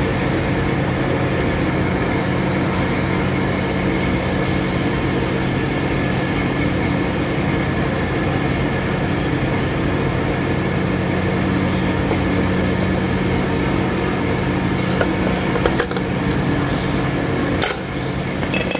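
Steady mechanical hum, even throughout, with a few light clicks near the end.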